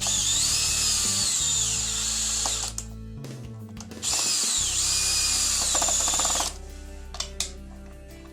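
Power drill running in two bursts of a couple of seconds each, its motor whine rising and falling in pitch with the trigger.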